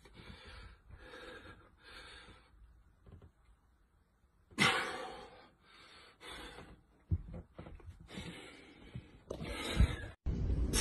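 A man breathing hard through his mouth while straining to hold flexed poses, in a string of forceful breaths of about half a second each. One sharp, loud exhale comes about halfway through.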